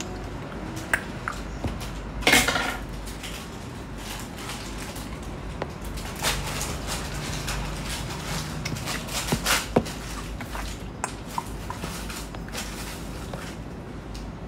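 Scattered light clicks and knocks over a steady low background hum, with a short louder clatter about two seconds in and a few smaller ones later.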